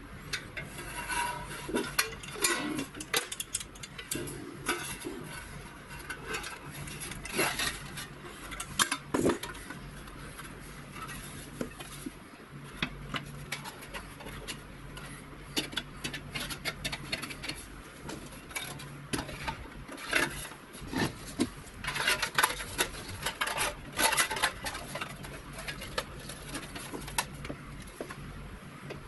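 Thin galvanized sheet-steel panels and hand tools clinking, knocking and scraping on a workbench while a small box enclosure is bent and fitted together by hand: irregular metallic clatters and scrapes, over a faint steady low hum.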